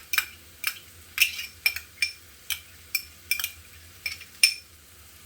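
Spoon knocking and scraping against a cooking pot while stirring chopped vegetables, about two sharp clicks a second, stopping about four and a half seconds in.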